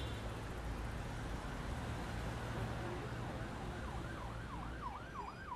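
City street traffic with a steady low rumble. From about three and a half seconds in, an emergency vehicle siren sounds in a rapid up-and-down yelp, a few sweeps a second.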